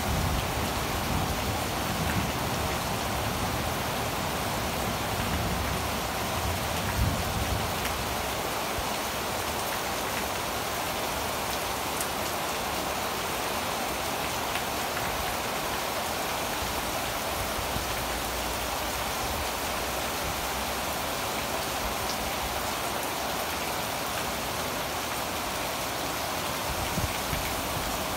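Heavy tropical downpour pouring steadily onto garden leaves and waterlogged ground, an even, unbroken hiss of rain, with some low rumble in the first several seconds.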